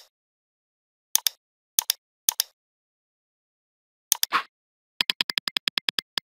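Mouse-click sound effects, mostly in quick pairs, come a second or so apart, with a short swish about four seconds in. From about five seconds a fast, even run of pitched ticks follows, about eight a second: a typing sound effect.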